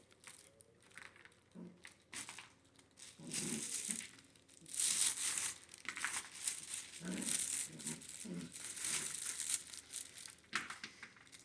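Irregular crinkling and rustling as puppies scramble and play, with the loudest stretches a few seconds in and again past the middle.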